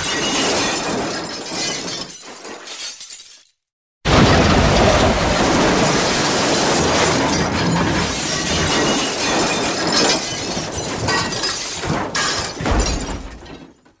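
Metal impact sound effects: a clattering metal crash dies away a few seconds in, then after a brief silence a second sudden crash starts and keeps rattling and clanking for about nine seconds before fading out.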